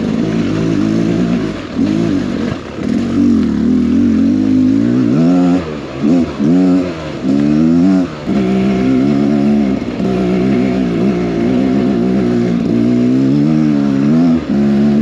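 Beta Xtrainer 300 single-cylinder two-stroke dirt bike engine under way on a trail, its revs rising and falling with the throttle. There are several quick blips of revs in the middle and brief drops in loudness between them.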